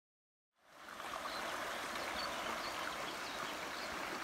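A shallow river running over rocks, a steady rushing babble that fades in about half a second in.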